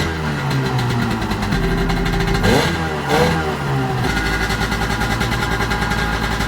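1995 Sea-Doo GTX's two-stroke twin engine running on the flush hose, revved up twice and then settling back to a steady idle. The engine has an exhaust leak between the exhaust manifold and the pipe.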